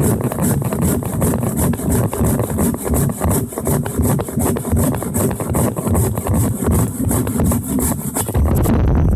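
Hand saw cutting through the wood of a fallen tree in quick, even back-and-forth strokes. The sawing stops just before the end, leaving a low rumble.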